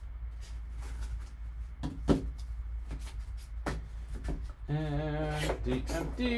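Trading cards and their packaging being handled: scattered soft rustles and clicks, with one sharper click about two seconds in, over a low steady hum. Near the end a voice holds a drawn-out sound.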